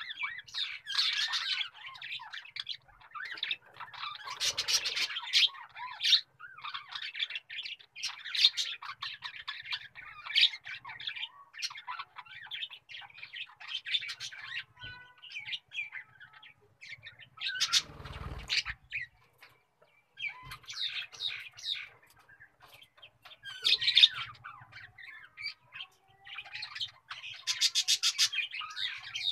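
Many birds chirping and squawking in dense runs of short, high calls with brief gaps, and a brief noisy burst about eighteen seconds in.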